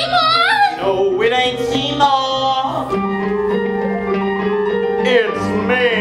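Stage-musical accompaniment of steady held chords, with wordless sung notes sliding up and down over them near the start and again near the end.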